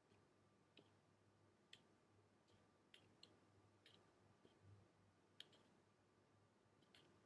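Near silence: room tone with faint, short clicks scattered irregularly through it, about one every half second to a second.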